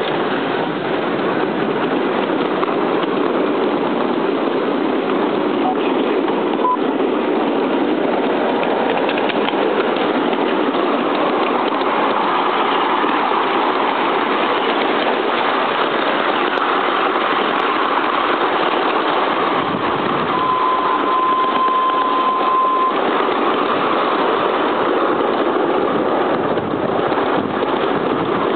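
A 7¼ inch gauge 2-4-2 tender steam locomotive hauling a passenger train, its exhaust chuffing and its wheels running on the rails, heard from the carriage just behind. A single steady tone sounds for a couple of seconds past the middle.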